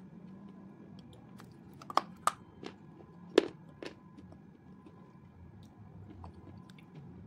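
A person chewing food close to the microphone, with about five sharp crunches in the middle, one much louder than the rest.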